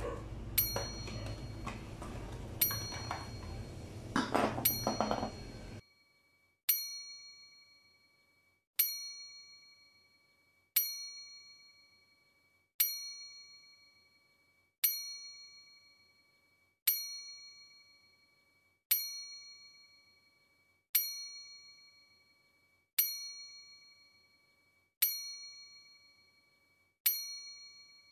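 A single bell-like ding repeats about every two seconds, each strike ringing and fading, as a looping background track. For about the first six seconds faint handling noise and knocks sit beneath it, then they cut out and only the dings remain.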